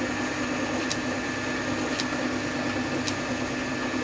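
Small metal lathe running, a steady hum with a faint tick about once a second.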